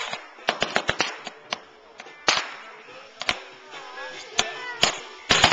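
Fireworks going off: an irregular string of sharp cracks and pops, with louder bangs about two seconds in and near the end.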